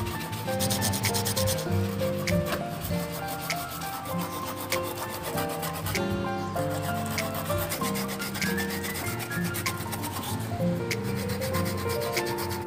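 Peeled cassava root being grated on a stainless steel box grater, a run of rasping strokes, with background music underneath.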